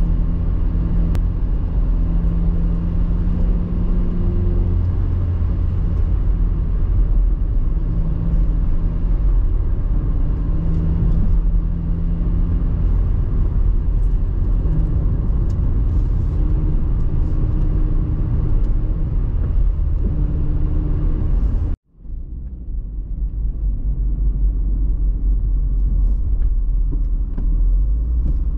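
Car driving, heard from inside the cabin: a steady low rumble of engine and tyre noise, with engine tones that shift a little in pitch. It cuts out abruptly for a moment about 22 seconds in, then comes back.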